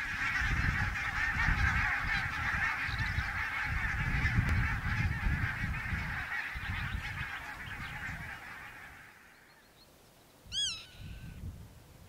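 A large flock of geese in flight, calling together in a dense honking clamour that fades out about nine seconds in. Near the end comes a single call from a different bird.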